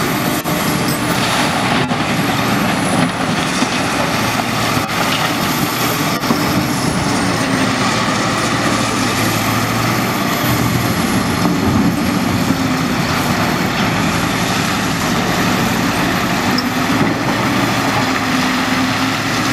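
Large Caterpillar diesel engines of a 992G wheel loader and a 777C haul truck running loud and steady under load, with a faint high whine wavering in pitch. There are occasional knocks of rock as the loader's bucket empties into the truck bed near the start.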